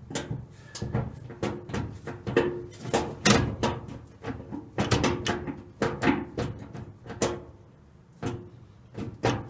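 Irregular clicks, clunks and rattles of a B&M shifter cable and Chevy TH350 transmission linkage being worked by hand through the gears, with a quieter stretch about three-quarters of the way in.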